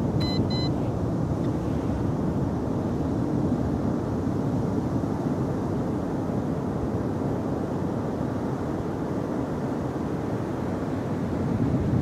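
Steady rush of ocean surf breaking on a beach, with two short, high electronic beeps just after the start.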